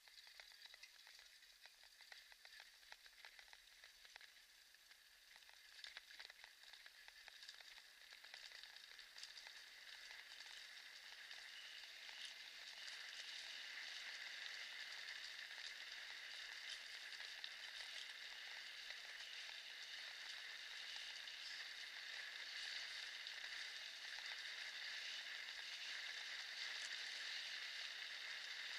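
Faint, steady crackling hiss of a kick scooter's wheels rolling over wet cobblestones, with scattered small ticks from the stones in the first few seconds. It grows louder about twelve seconds in.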